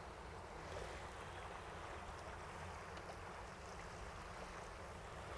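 Faint, steady wind and moving-water noise, with no distinct events.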